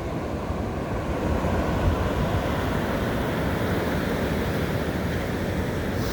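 Ocean surf washing steadily onto the beach at high tide, with wind rumbling on the microphone.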